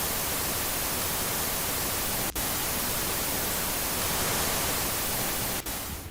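Steady hiss of television static, as if the set has lost its signal after the news report. There are two brief dropouts, about two seconds in and again near the end, where it then cuts off.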